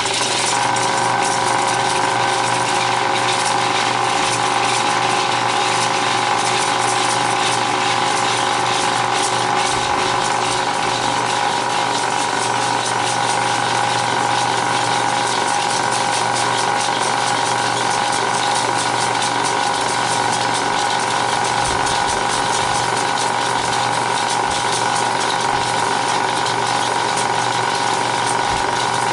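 Bell & Howell 1575A 16mm film projector running in rewind, its motor and mechanism spinning the film back onto the reel at speed: a loud, steady mechanical whir with several steady tones.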